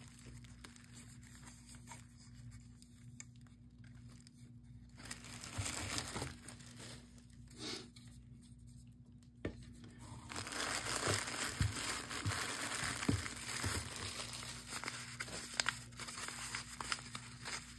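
Packing being pulled out of a cardboard box: a few faint handling sounds at first, then from about ten seconds in a steady crinkling of bubble wrap and tissue paper.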